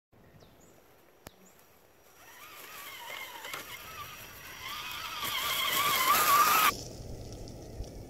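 Whine of a Vaterra Twin Hammers RC crawler's electric motor and drivetrain, its pitch wavering with the throttle and growing louder, then cutting off suddenly about two-thirds of the way in. A few faint bird chirps come before it.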